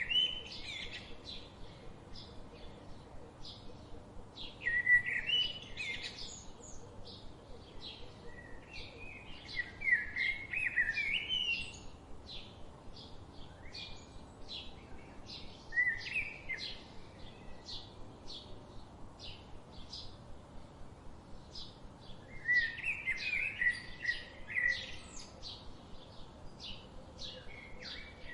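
Songbirds singing. Short, high chirps repeat about twice a second throughout, and louder warbling song phrases break in several times: about 5 s in, from about 9 to 12 s, around 16 s, and from about 22 to 25 s.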